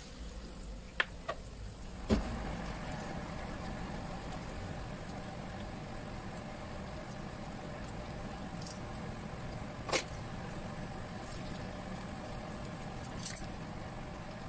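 Beaten egg frying in a pan of hot oil, a steady sizzle as it crisps. A few sharp taps of utensils on the pan break through, the loudest about two seconds in and another near ten seconds.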